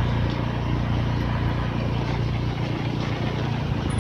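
An engine running steadily at a constant speed, a deep even drone.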